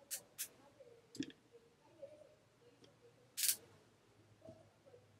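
Quiet room with small handling sounds: a couple of faint clicks near the start and another about a second in, then one louder brief rustling hiss about three and a half seconds in.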